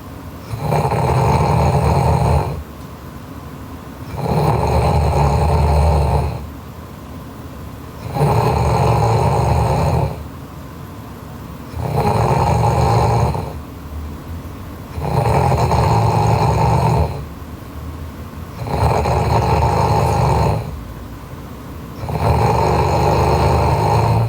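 A sleeping young woman snoring loudly in a slow, even rhythm: seven long snores, each about two seconds, one every three and a half to four seconds.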